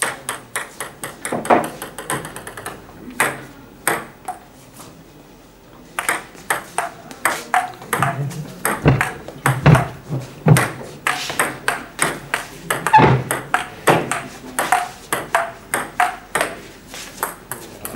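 Table tennis rally: the celluloid-type plastic ball clicking off rubber paddles and bouncing on the table, several hits a second. A short exchange, a pause of about two seconds, then a long rally through the rest.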